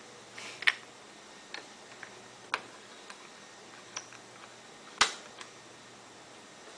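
A handful of short, sharp clicks and taps at irregular intervals, the loudest about five seconds in, over a faint steady low hum.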